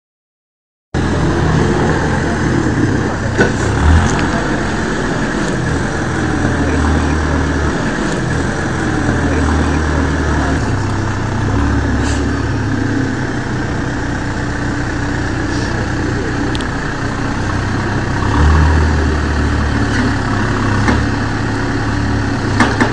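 Backhoe loader's diesel engine running steadily, growing louder at times as the machine works, with a few sharp knocks.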